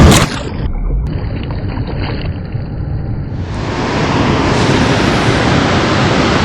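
Steady rushing of water from the dam's outflow, with a loud burst of wind on the microphone right at the start.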